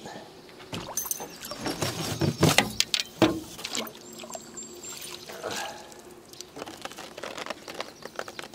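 Water splashing and dripping, with a run of irregular sharp knocks and splashes strongest in the first few seconds, as a caught northern pike is landed.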